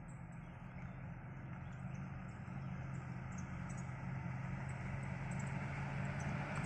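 Engines of Land Rover 4x4s crawling along a dirt track: a steady low hum that grows gradually louder as they approach.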